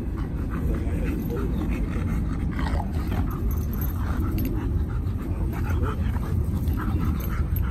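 A husky and a Rottweiler playing, with short dog sounds coming again and again over a steady low rumble.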